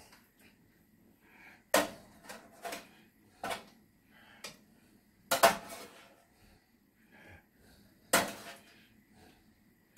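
A metal fork clinking and scraping against a metal roasting tray and a frying pan as stuffed peppers are lifted across; about seven sharp clinks, the loudest a cluster about five and a half seconds in and another just after eight seconds.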